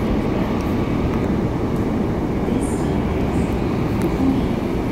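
Steady running noise inside a Seoul Subway Line 8 car travelling through a tunnel: a continuous rumble of wheels on rail and the train's undercarriage, heard from within the cabin.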